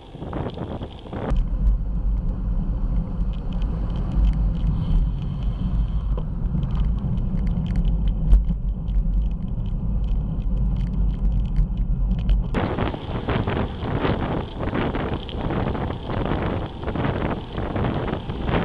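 Wind buffeting a bicycle-mounted camera's microphone while riding, with a strong low rumble through most of the middle stretch; near the end the rumble gives way to rushing wind noise.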